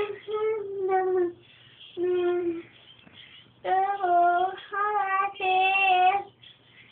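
Young child singing in a high voice in short phrases of held notes, with pauses between them and a longer run of notes in the second half.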